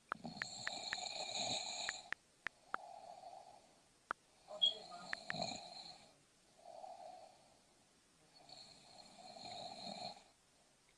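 A person snoring in their sleep: three snores about four seconds apart, each a louder stretch followed by a shorter, softer one. Several sharp clicks come mostly in the first few seconds.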